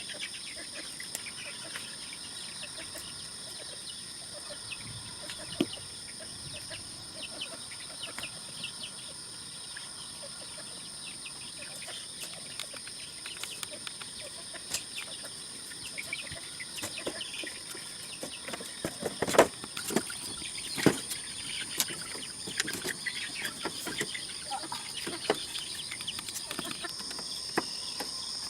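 Chickens clucking over a steady high-pitched insect drone, with a cluster of sharp knocks and clicks about two-thirds of the way through.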